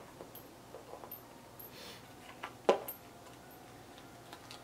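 Small clicks and light taps of handled plastic and metal parts as a soldering iron and its spare tips are handled, with one sharper click a little past halfway.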